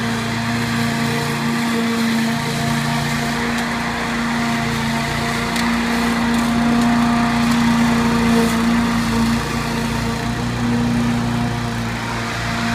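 Greenfield rotary lawn mower's Briggs & Stratton 850 I/C single-cylinder petrol engine running steadily while mowing grass.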